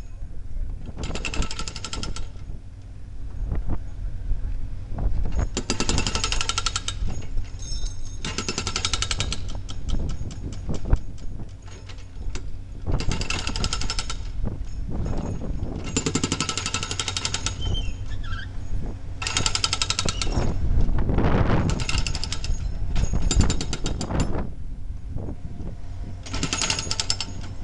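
Kent KF 4 FSP hydraulic breaker on a Cat 303 CR mini excavator hammering concrete wall panels in about nine bursts of rapid blows, each lasting a second or two with short pauses between. Excavator engines run steadily underneath.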